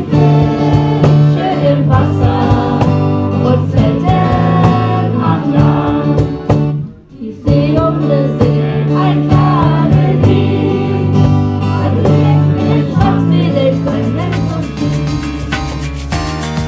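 Schlager band playing: guitars and several voices singing together over a steady bass line, with a short break in the music about seven seconds in.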